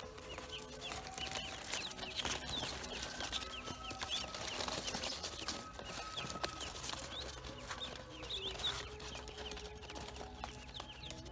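A brood of newly hatched Pekin and black ducklings peeping, many short high rising peeps overlapping one another, with scattered rustles and clicks as a hand moves among them in the straw.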